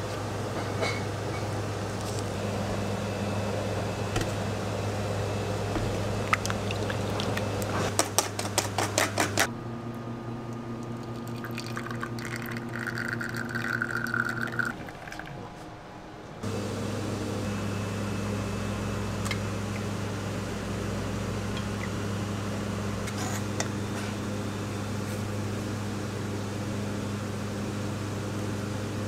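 Steady low machine hum with scattered clicks, and a quick run of clicks about eight seconds in. In the middle, for about seven seconds, an espresso machine runs with a steady hum while a shot pours into a glass.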